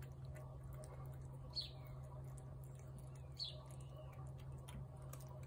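Tabby cat eating wet cat food from a plate, faint chewing and licking clicks. A bird chirps twice, short falling chirps about a second and a half in and again near three and a half seconds, over a steady low hum.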